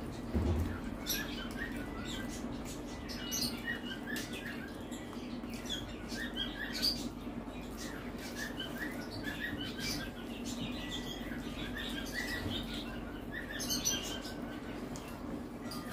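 Two people eating rice with their hands: fingers mixing rice and curry on the plates, chewing and many small wet mouth clicks, over a steady low hum.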